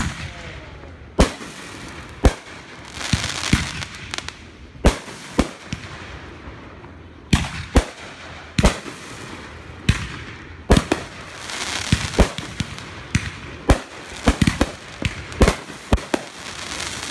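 Aerial fireworks bursting overhead: a string of sharp bangs at irregular intervals, some in quick clusters, with a couple of stretches of hiss between them.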